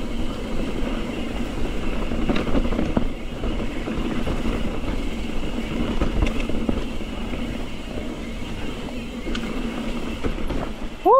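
Santa Cruz Bronson mountain bike descending a dirt forest singletrack at speed: a steady rumble and hiss of tyres on dirt mixed with wind across the camera and the bike rattling. There are a few sharper knocks, about two seconds in, around six seconds, and near nine and a half seconds.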